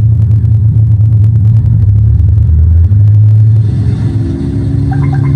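Simulated P-51 Mustang piston engine sound from an RC model aircraft sound-effect card, playing as a steady low engine rumble that shifts in tone about four seconds in.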